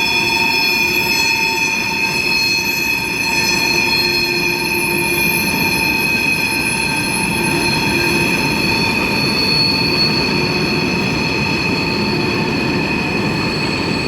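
Freight train cars passing with their wheels squealing loudly: a steady shrill screech of several high tones held together over the rumble of the rolling cars. The onlookers put it down to worn-out wheel bearings.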